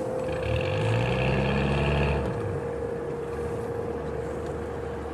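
Diesel engine of a fishing tug surging briefly about half a second in, then dropping back to idle just after two seconds, over a steady whine.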